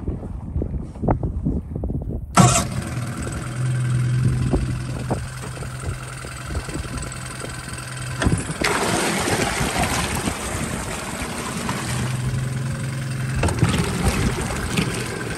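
Yamaha 9.9 four-stroke outboard engine catching suddenly about two seconds in, then running steadily with its lower unit in a barrel of water, the exhaust churning the water. The sound gets louder from about eight seconds in.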